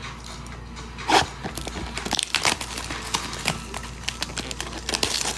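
Foil wrapper of a Bowman Chrome baseball card pack crinkling and tearing as it is opened by hand, a run of short scratchy rustles starting about a second in.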